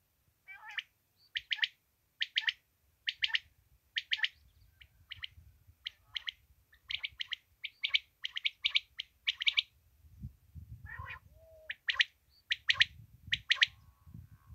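Quail (batair) calling: short, high calls in quick groups of two or three notes, repeated about once a second, with a lower, rougher call about ten seconds in. This is a calling rig used to lure quail for hunting.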